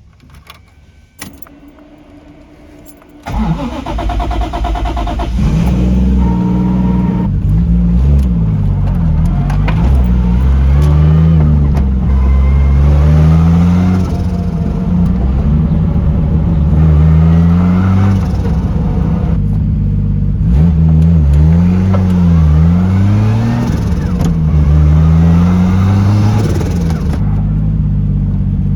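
A few faint clicks, then about three seconds in a Toyota 1JZ-GTE turbocharged inline-six starts up on a very basic tune. It runs loudly, its note rising and falling again and again as it pulls and drops back, held below about 2000 rpm.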